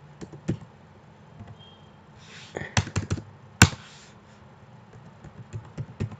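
Computer keyboard keys clicking as a phone number is typed in irregular keystrokes. There is a quick run of presses around the middle, one louder key click just after it, and another run near the end.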